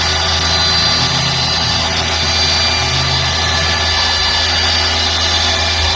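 DIY CNC mill engraving, its spindle running at about 4,900 rpm: a steady hum with a constant high whine over it.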